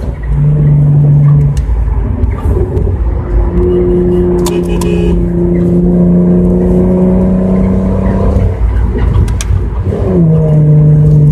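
Car engine heard from inside the cabin while driving. It runs at a steady drone, climbs to a higher steady pitch a few seconds in as the car accelerates, and drops back near the end.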